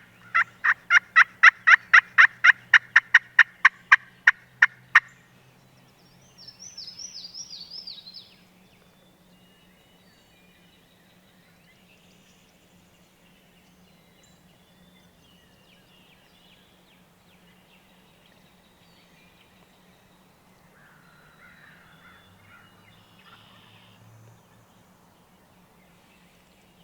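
A loud, rapid run of about twenty turkey yelps, about four a second, stopping about five seconds in. A songbird's short descending trill follows, then faint woodland quiet with a soft, low sound near the end.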